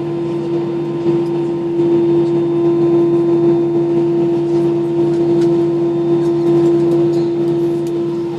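Steady drone inside an airliner cabin while it waits or taxis before takeoff: a continuous hum with one strong low tone, growing a little louder about two seconds in, with a few faint clicks.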